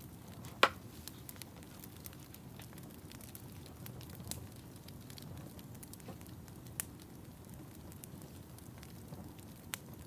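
Wood fire in a fireplace crackling over a steady low rumble, with a loud sharp pop about half a second in and scattered smaller snaps after it.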